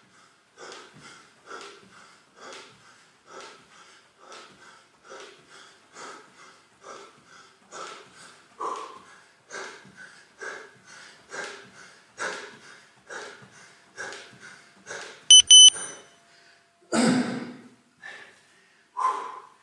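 Heavy rhythmic breathing of a man doing jumping jacks, one breath with each jump, a little over once a second. Near the end the interval timer gives two short high beeps marking the end of the work period, followed by a loud panting exhale and another breath.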